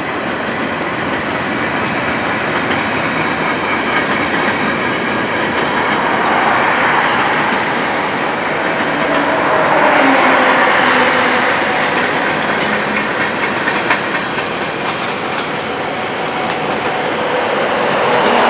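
Freight cars of a BNSF mixed train rolling past, their steel wheels running on the rails in a steady noise. It swells louder about ten seconds in and again near the end.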